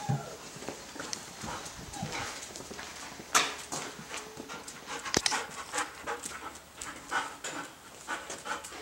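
German Shepherd trotting over a concrete floor, its claws and paws clicking irregularly, with two sharper knocks about three and a half and five seconds in.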